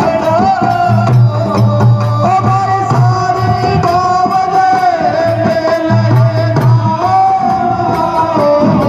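Rajasthani Holi folk song (dhamal) sung with long held notes over chang frame drums beating a steady rhythm.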